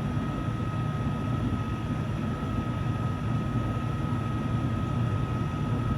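Steady low machine drone with a thin, constant high whine running through it.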